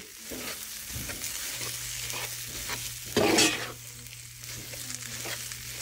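Spatula stirring and scraping a thick flour-and-paste mixture of soybean, potato and banana in a kadai over heat, with one louder scrape about three seconds in. The mixture is being cooked down until it thickens into a dough.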